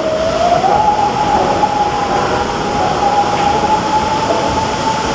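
Log flume ride machinery running with a steady whine over a rushing, rumbling noise; the whine rises a little in pitch just under a second in, then holds.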